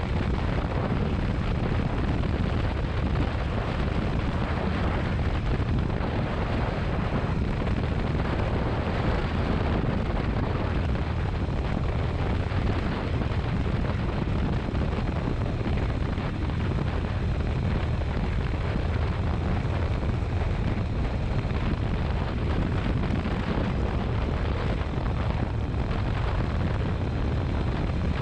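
A motorcycle under way: a steady low rumble of engine and road noise, with wind rushing over the microphone.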